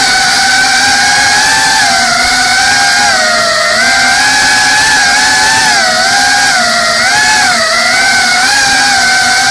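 GEPRC Cinelog 35 cinewhoop in fast flight: its brushless motors and ducted propellers give a loud, steady whine whose pitch dips and rises again and again as the throttle changes.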